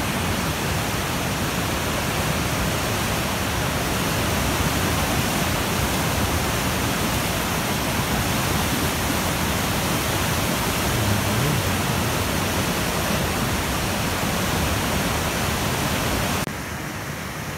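A flood-swollen river rushing past with a steady, dense rush of water. It is running at about 3.5 times its normal flow after heavy rain and snowmelt. The sound drops away about a second before the end.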